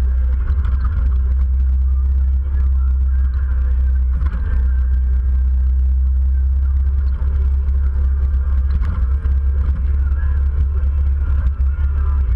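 Motorcycles cruising at steady road speed, heard from a bike-mounted camera: a loud, even low rumble of engine and wind on the microphone.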